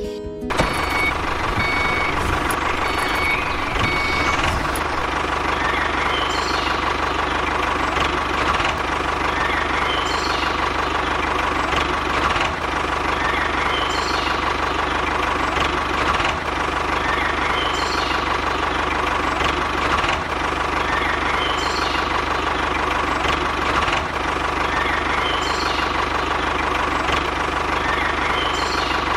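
A small engine running steadily, with a faint high chirp repeating about every two seconds.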